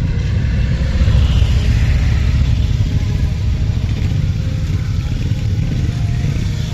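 A column of motorcycles riding slowly past at close range, their engines running loud and steady, loudest about a second or two in.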